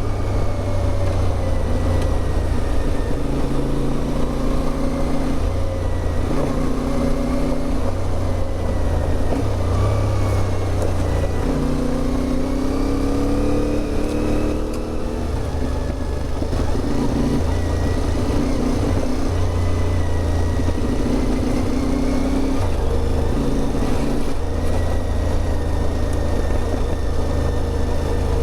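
CFMOTO 450MT's parallel-twin engine running under way on a dirt road, its pitch rising and falling with throttle and gear changes; it revs up a little before the middle, then drops back briefly.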